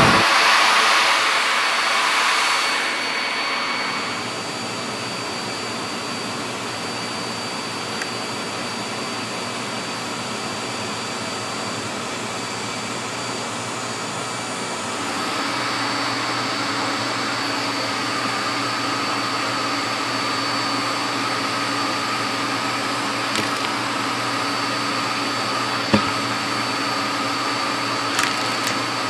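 Hitachi CV-KS8 canister vacuum cleaner running with its hose sucking: a loud rush of air in the first few seconds settles into a steady motor drone. About halfway through, the motor's tone shifts higher and a little louder. A few sharp clicks come near the end.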